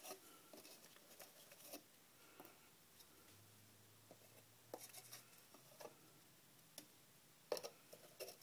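Near silence with scattered faint clicks and light scrapes of a clear plastic cup being handled against a plastic tub, with a sharper tap about seven and a half seconds in.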